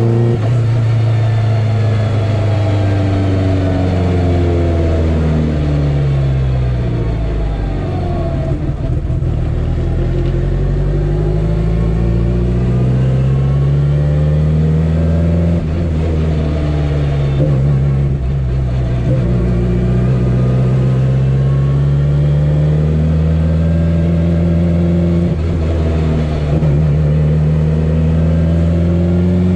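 Turbocharged Mitsubishi 4G63 four-cylinder in a DSM drag car running on a test drive. The engine note falls, climbs, falls again and then climbs steadily through the last ten seconds as the car accelerates and slows.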